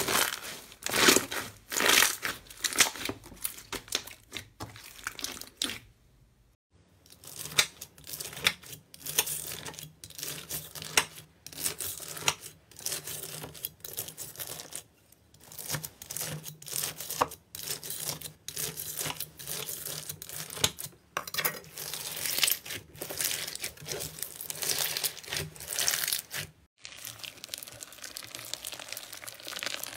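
Slime being handled, with a dense run of sticky crackles and clicks. Clear green slime is pressed by hands first, then bead-filled slime is cut and pressed, giving the same busy crackle. Near the end the sound changes abruptly to a softer squelching rustle as yellow slime is squeezed in a glass bowl.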